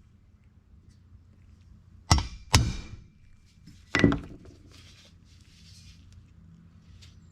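Three blows of a dead-blow ball-peen hammer on a stainless steel car trim piece, tapping a crease straight: two close together about two seconds in and a third about four seconds in, each a sharp knock with a short ring after it.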